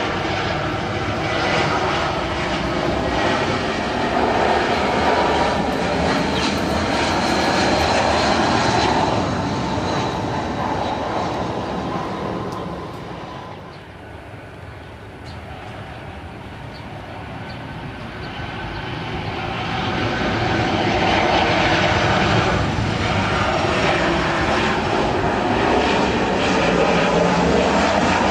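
Airliner jet engines on landing approach: the steady rumble of an Airbus A320's IAE V2500 turbofans fades out about halfway. Then a Boeing 737-900ER's CFM56 engines build up again to a loud passing roar.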